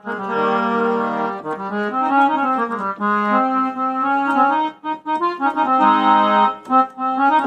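Yamaha PSR-I500 keyboard playing its harmonium voice: sustained, reedy chords and notes that move in steps, with short breaks about five seconds in and just before the end.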